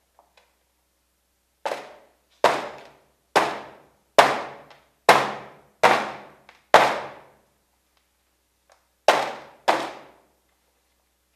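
Hammer blows on a worktable: nine heavy strikes, seven about a second apart, then a pause and two more in quick succession near the end. Each strike is followed by a long echoing decay.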